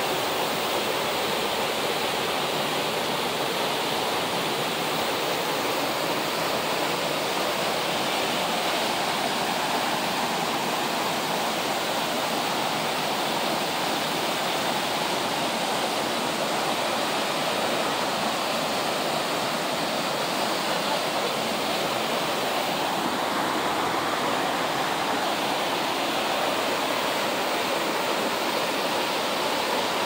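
Horsetail Falls pouring into its plunge pool: a steady, even rush of falling water.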